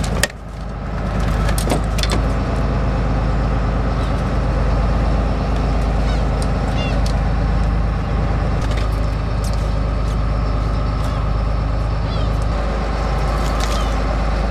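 Squid-fishing boat's engine and deck machinery running with a steady low drone, with a sharp knock right at the start and scattered light clicks.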